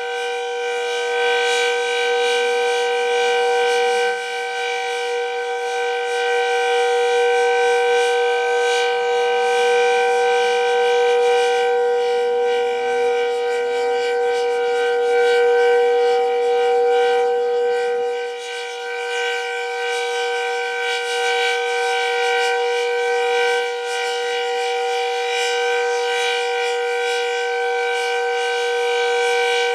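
Decot Red Arrow Model 12 outdoor warning siren sounding the steady Alert signal: one loud, held wailing tone with a constant pitch, its loudness swelling and dipping slightly over the seconds.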